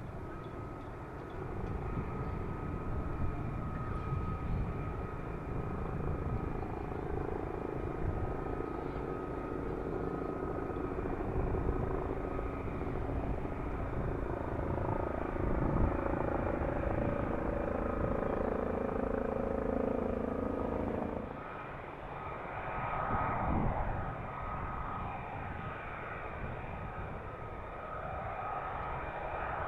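F-35A's Pratt & Whitney F135 turbofan running with a steady rumble and a thin high whine; the sound changes abruptly about two-thirds of the way through.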